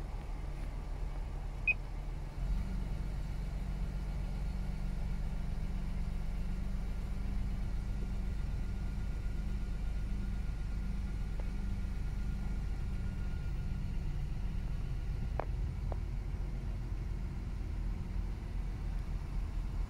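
Steady low hum inside a Toyota Crown's cabin from the idling engine and running climate-control blower; it steps up slightly about two and a half seconds in. A light click comes about two seconds in and another near the end, with a faint thin whine for several seconds in the middle.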